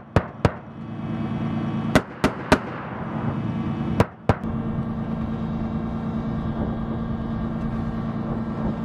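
Vehicle-mounted heavy machine gun firing short bursts: about seven sharp shots in three quick groups, each shot a fraction of a second apart, all in the first half. A vehicle engine idles steadily under the shots and carries on alone afterwards.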